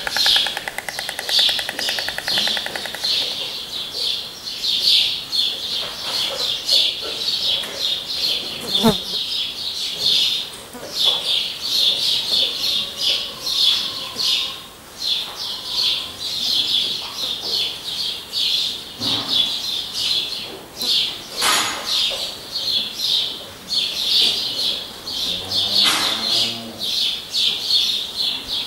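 White storks bill-clattering on the nest, a fast, even wooden rattle that stops about three seconds in: the pair's greeting display. Throughout, small birds keep up a dense high chirping.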